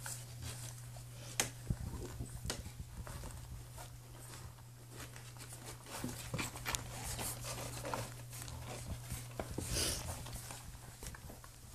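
Newborn puppies shuffling and nursing against their mother dog: scattered small clicks and brief scratchy rustles of fur and cloth bedding, over a steady low hum.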